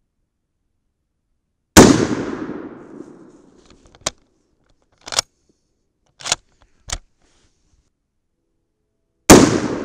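Two shots from a bolt-action rifle chambered in 7.62×54R, one about two seconds in and one near the end, each followed by a long echo that trails off. Between them come four short, sharp metallic clicks as the bolt is worked to eject the spent case and chamber the next round.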